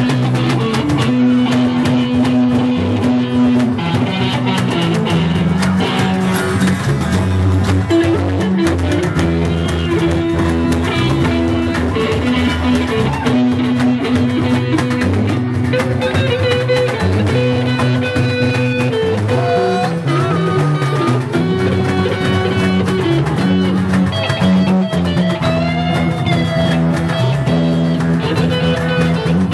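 Instrumental break in a band's song: a guitar plays over bass and drum kit, with no singing.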